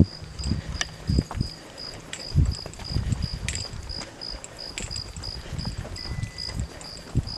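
A cricket chirping in an even, steady rhythm, about two and a half chirps a second. Under it come irregular low thumps from footsteps and handling of the camera.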